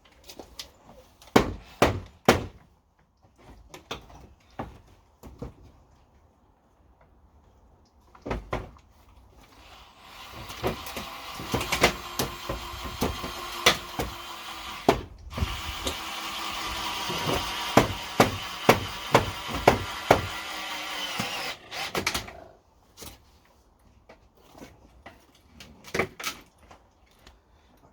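Sharp knocks and clatter of timber being worked loose. From about ten seconds in, a power drill runs for about five seconds, stops briefly, then runs again for about six more while knocks continue.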